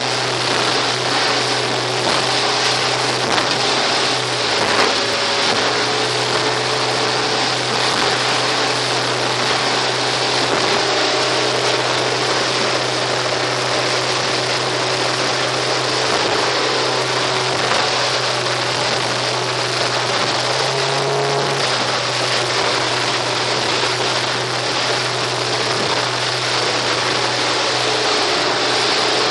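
Suzuki outboard motor running steadily as the boat planes at speed, a constant low drone under a loud rush of wind and water.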